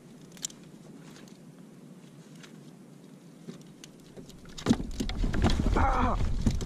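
An angler on a kayak handling his catch: faint clicks and rustling, then about two-thirds through a low rumble of wind on the microphone and a short vocal cry.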